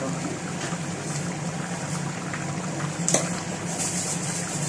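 A pot of chicken stew in tomato sauce simmering on the stove over a steady low hum. There is a sharp click about three seconds in. Near the end, salt is shaken from a plastic container into the pot with a quick, even rattle.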